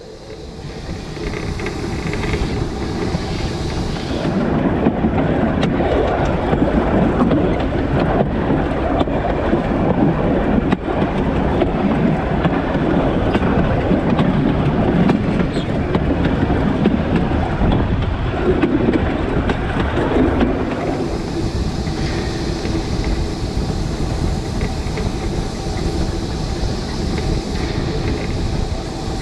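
Narrow-gauge steam locomotive running along the line, heard close up from on the engine: a steady rumble and clatter of wheels on the rails with the engine's running noise. A higher hiss joins about two-thirds of the way through.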